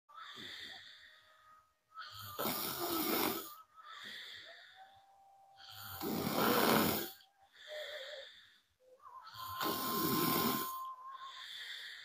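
A woman snoring: three loud snores about three and a half seconds apart. The quieter breaths between them carry a thin, steady whistle.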